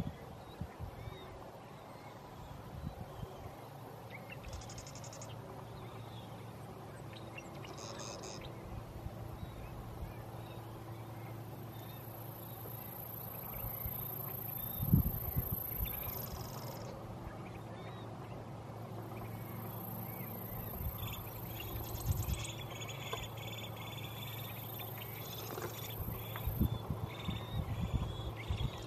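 Ducks calling at the water's edge over a steady low background hum. A high hiss comes and goes, and a single thump halfway through is the loudest sound.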